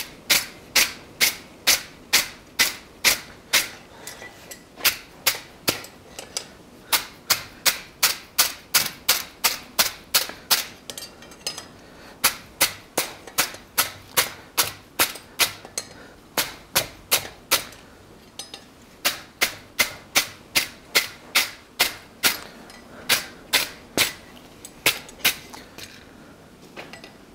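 Hand wire brush scrubbed in quick strokes over a forged steel keychain held in tongs on the anvil: a steady run of sharp clicks, about three a second, with a few short pauses.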